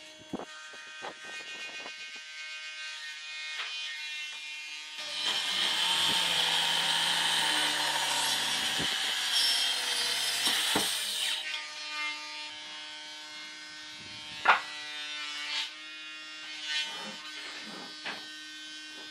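DCA handheld electric circular saw cutting through a thick rough wooden slab for about six seconds, starting about five seconds in. Before and after the cut there is a quieter steady hum with scattered knocks of wood, the sharpest about fourteen seconds in.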